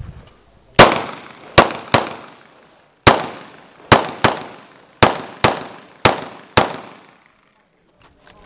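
Ten pistol shots fired in about six seconds, mostly as quick pairs (double taps), each followed by a trailing echo.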